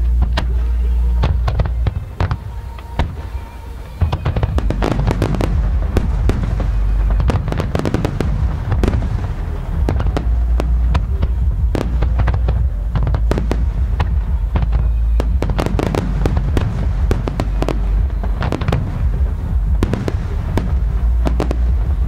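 Aerial fireworks display: a dense run of bangs and crackling over deep booms. There is a short lull about two seconds in, then a sharp loud bang about four seconds in, with music playing underneath.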